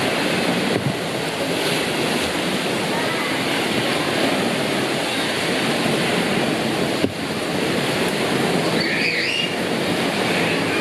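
Artificial waves churning in a water-park wave pool: a steady, loud rush of water.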